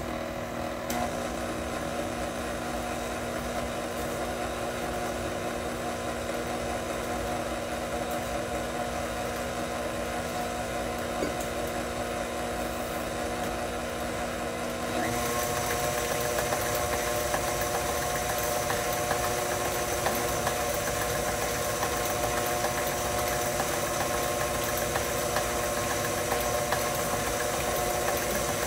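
Electric stand mixer running steadily while beating chocolate cake batter, a motor hum with a whir. About halfway through the sound steps up, louder and higher-pitched.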